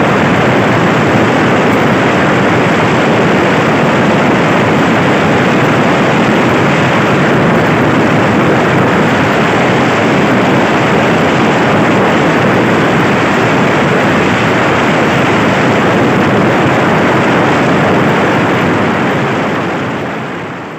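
Heavy rain falling in a steady, even rush that fades out over the last two seconds.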